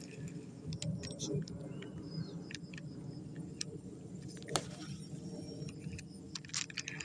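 Scattered sharp clicks and small rattles of fishing tackle being handled as the lure is worked, over a low steady rumble; one louder click about four and a half seconds in.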